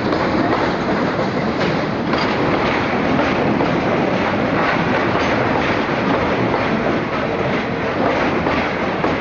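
A train running past at close range across a high railway bridge, a loud, steady rumble of wheels and wagons on the track.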